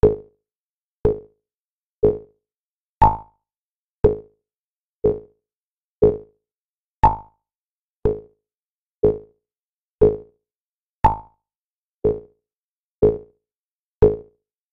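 Short synthesized tones in a steady metronome-like count of one per second, every fourth tone higher-pitched than the three between. Each tone is brief and dies away quickly.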